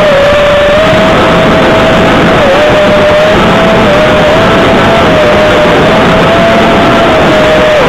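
GepRC FPV quadcopter's brushless motors whining at a steady pitch that dips and recovers slightly with throttle changes, loud and distorted through the quad's onboard camera microphone.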